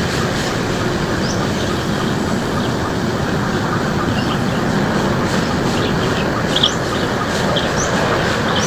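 Small birds chirping in short, high notes over a loud, steady rushing noise.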